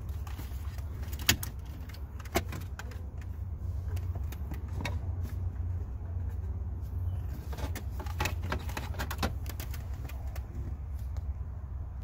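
Scattered light clicks and knocks from a removed Chrysler Crossfire climate control unit, its plastic housing and knobs, as it is handled and turned over, over a steady low rumble.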